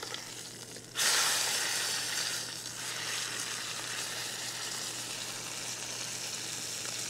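Chuck roast searing in hot olive oil in a 12-inch Lodge cast-iron Dutch oven, sizzling. About a second in the sizzle flares up sharply as the roast is turned onto an unbrowned side, then settles back to a steady sizzle.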